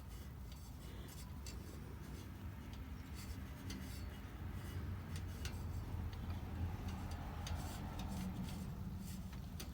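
Faint hand-handling noise as steel epoxy putty is pressed onto an exhaust pipe: scattered small clicks and rustles over a low steady rumble.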